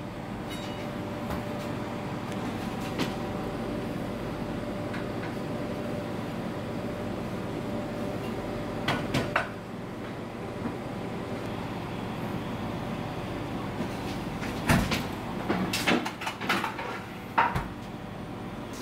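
Steady hum of dining-room ambience, with a pair of sharp knocks about nine seconds in and a cluster of knocks and clatter in the last few seconds.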